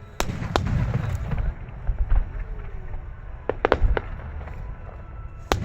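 Starmine fireworks: shells bursting in quick succession, sharp cracks over deep booms, with a run of rapid cracks about three and a half seconds in and a fresh loud burst just before the end.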